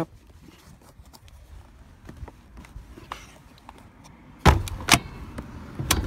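Plastic seat trim cover being pressed onto the Honda Ridgeline's rear seat, with light handling rustle and small ticks, then two sharp snaps of its clips going into place about four and a half seconds in and another near the end.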